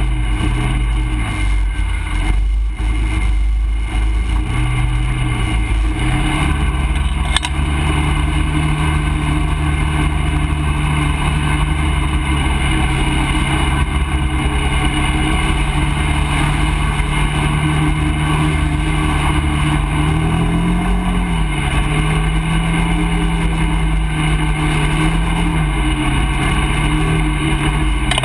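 ATV engine running steadily as the quad rides a muddy forest trail, its revs rising and easing slightly now and then.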